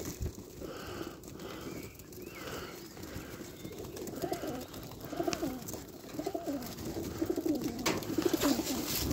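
Domestic pigeons cooing, repeated calls close by that start about four seconds in and go on to the end, with a couple of light clicks near the end.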